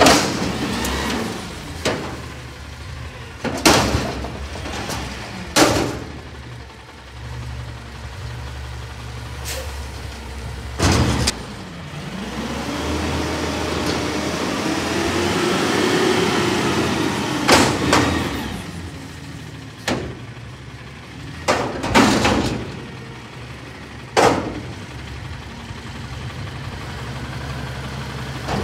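Natural-gas front-end-loader garbage truck (Peterbilt 320 with a Gomez body) emptying a steel commercial dumpster. The engine revs up and down to drive the lift arms and forks, rising and falling in pitch, over a steady low hum. A series of sharp, loud metal bangs comes as the bin is tipped and shaken over the hopper and then set back down.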